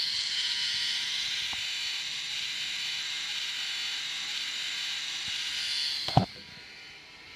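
Small LEGO motor and gear train whirring steadily as it winds a string onto an axle, reeling up a hanging coin. About six seconds in it stops with a single sharp knock.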